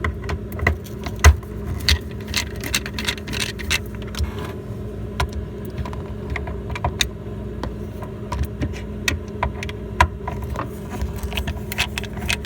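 A 1/4-inch socket tool loosening the ice maker's mounting screws: irregular clicks and small metal rattles, coming in clusters, over a steady low hum.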